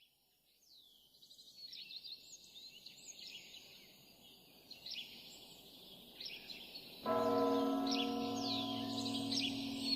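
Small birds chirping and trilling, then about seven seconds in a large church bell is struck once and rings on, much louder than the birds.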